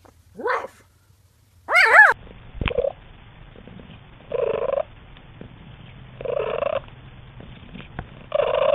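An animal's high whines that bend up and down in pitch, then, after a cut, an animal making a short, rough sound about every two seconds, like heavy breathing.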